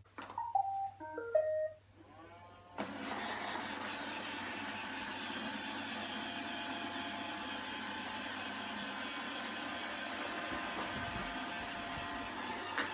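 iRobot Roomba robot vacuum playing its short electronic start-up tune of stepped beeps, then about three seconds in its vacuum and brush motors start up and run as a steady whir with a faint whine.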